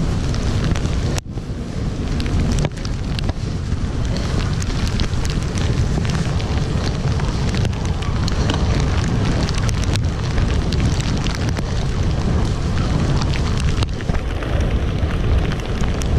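Wind rumbling on the bare microphone of a handlebar-mounted GoPro Hero 5 on a bicycle riding in rain on a wet street, over a steady hiss with many scattered sharp ticks. The sound dips briefly twice in the first few seconds.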